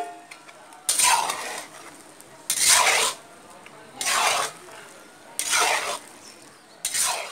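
A metal spatula scraping and stirring meat curry in a kadai (wok), five strokes about one and a half seconds apart.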